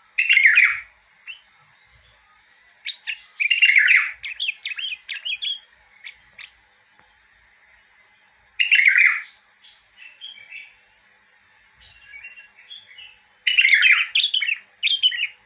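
A caged bulbul singing: four loud, short song phrases a few seconds apart, with softer chattering notes between them.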